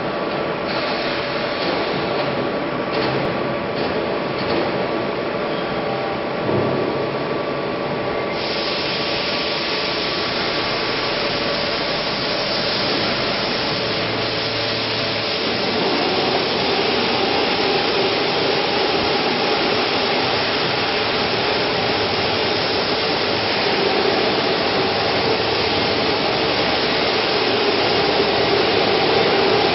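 SKJ200 flat die pellet mill running, its 7.5 kW electric motor and roller-and-die press making a loud, steady mechanical drone with a hum under a rushing noise as it extrudes pellets.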